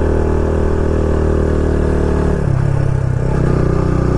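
Motorcycle engine running under way on a winding road, a steady note that shifts in pitch for about a second roughly two and a half seconds in.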